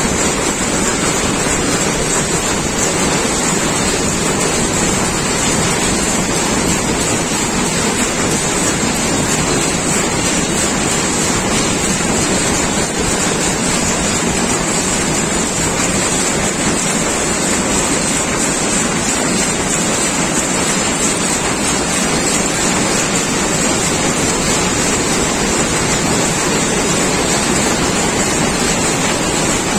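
Rapier weaving loom running: a loud, steady, dense mechanical clatter that blurs into a continuous din.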